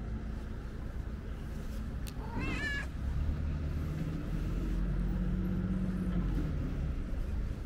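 Ginger tabby cat giving one short, wavering meow about two and a half seconds in, over a low rumble that swells through the middle.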